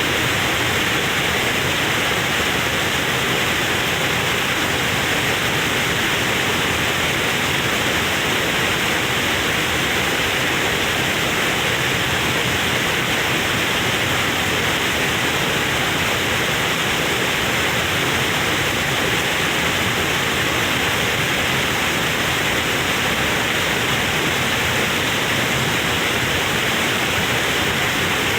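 Waterfall: falling water making a loud, steady, unbroken rush.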